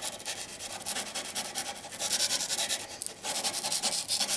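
Steel knife blade being ground against an abrasive stone in repeated scraping strokes, grinding away the blade's sharpening choil, with a brief pause about three seconds in.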